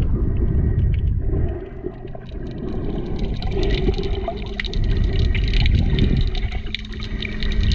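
Underwater water noise picked up through a camera's waterproof housing while swimming: a low rumbling wash that swells and ebbs, with a steady crackle of many small sharp clicks.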